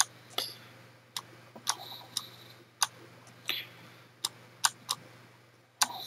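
Computer mouse clicking: about ten short, sharp clicks at irregular spacing, over a faint steady low hum.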